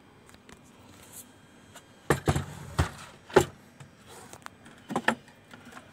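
Hands handling the wooden subwoofer cabinet and its rear-panel connectors: a series of sharp knocks and clicks about two seconds in, another a little later, and a pair near the end.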